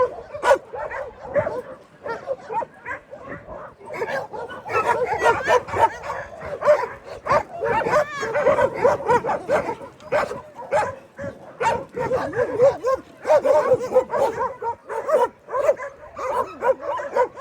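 Many dogs barking at once, their voices overlapping without a break.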